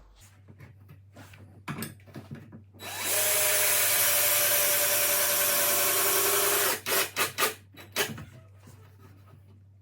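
Power drill-driver driving a hinge screw into wood: a few light handling clicks, then the motor runs steadily with a whine for about three and a half seconds, followed by several short pulses of the trigger as the screw seats.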